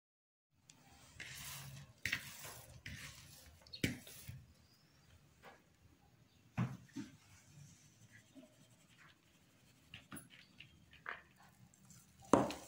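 Handling noises: a cloth rustling off a mixing bowl, then scattered light knocks of the bowl against a hard countertop as risen dough is tipped out, with the loudest knock near the end.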